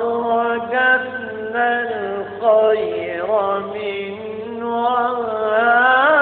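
Arabic Islamic devotional chant (inshad): singing drawn out in long, wordless melismatic vowel lines, the pitch bending and wavering in ornaments, over a steady low drone.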